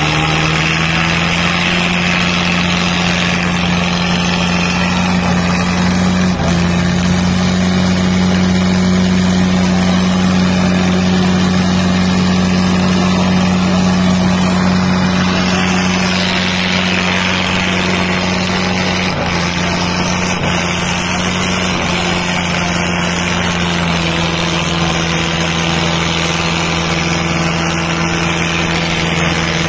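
Diesel tractor engine running steadily, its pitch stepping slightly up and down a few times.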